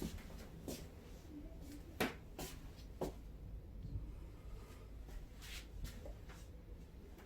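Scattered light knocks and clicks in a small room, about five in all, the sharpest around two and three seconds in.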